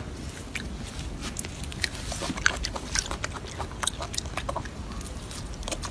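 Golden snub-nosed monkey chewing a piece of fruit: a run of small, irregular clicks.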